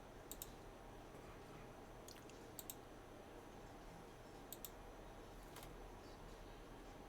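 Computer mouse clicking, several quick pairs of clicks, over a faint steady hum.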